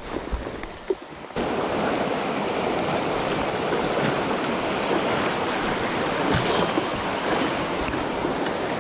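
A few soft footsteps and rustles for about a second and a half, then a sudden switch to the steady rush of a fast mountain stream flowing over rocks close at hand.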